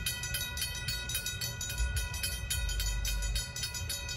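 Railroad crossing bell ringing steadily with rapid, evenly spaced strikes, the warning that the crossing is activated.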